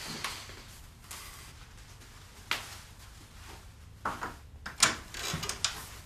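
Irregular knocks and rustling of people getting up and walking, then a wooden door's handle and latch clicking as the door is opened, the loudest click about five seconds in.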